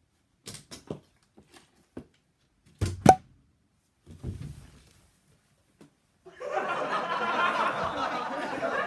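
A few knocks and thuds of a plastic water bottle being tossed and hitting a hard surface, the loudest about three seconds in. From about six seconds in, a dense, sustained sound that is an added sound effect.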